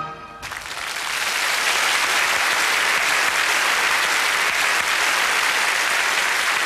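Studio audience applauding, swelling up over the first second and then holding steady. The last held note of the song fades out just before the clapping starts.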